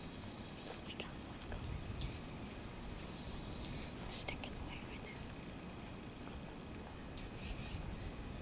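Small birds giving scattered short, high chirps, each a quick downward note, several over a few seconds.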